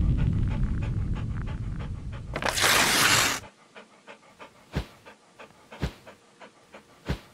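Dog panting sound effect, quick breaths over a low rumble, cut about two and a half seconds in by a loud hissing swish. The panting then carries on faintly, with three soft thumps.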